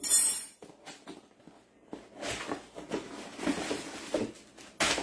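Cardboard mystery box being opened and handled: a short, sharp rip at the very start, then a few seconds of rustling and scraping, and a single knock near the end.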